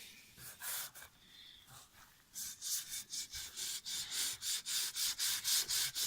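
Sanding block rubbed back and forth on a wooden bass drum hoop. A few light strokes at first, then from about two seconds in a steady rasping rhythm of about three strokes a second.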